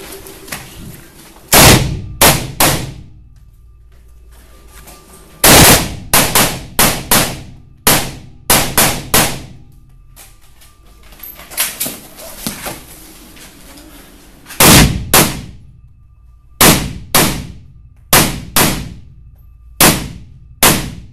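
Semi-automatic fire from an AR-style rifle in quick strings of shots with short pauses between, each shot echoing off the concrete walls and ceiling of an indoor range. A quieter burst of shots comes in the middle.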